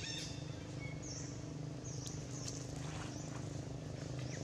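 High-pitched animal chirps: one right at the start with several stacked tones falling in pitch, then a few thinner high chirps, over a steady low hum.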